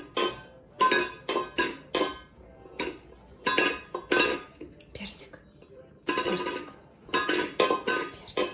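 A cat knocking a small stainless-steel bowl against a tiled floor with its paw: a run of sharp ringing metal clanks, about two a second, with a short lull midway.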